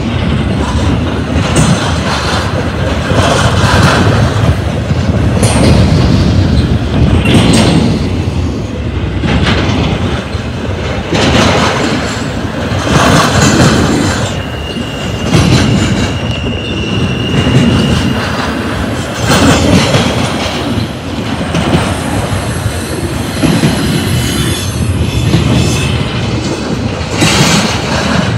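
Cars of an intermodal freight train rolling past: a steady rumble of wheels on rail with repeated clacks, and a thin, high wheel squeal for a few seconds just past the middle.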